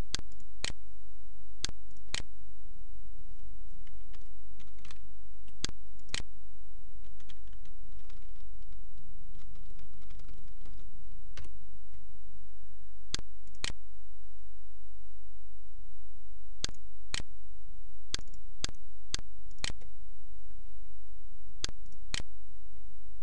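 Scattered sharp clicks of a computer mouse and keyboard, often in pairs about half a second apart, over a steady low hum.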